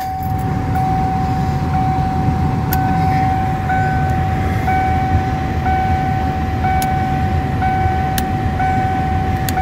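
A steady high tone with a second, higher tone pulsing about once a second, over a low steady rumble.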